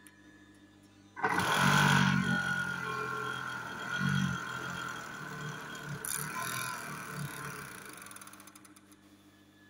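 Industrial overlock sewing machine (serger) starting abruptly about a second in and running with a steady whine as fabric is stitched through it, then slowing and dying away near the end.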